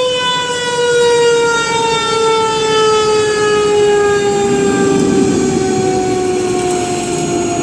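Fire truck siren sounding one long, slow downward glide in pitch, with the truck's engine rumbling underneath and growing louder from about halfway.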